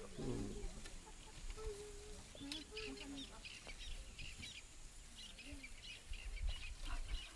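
Wild birds calling: a run of short, high chirps, with a few short lower notes near the start. A low rumble swells about six seconds in.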